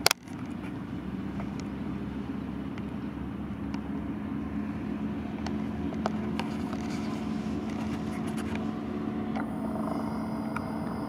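Motorboat engine running at a steady hum as the boat passes close by, slowly growing louder. A single sharp click comes right at the start.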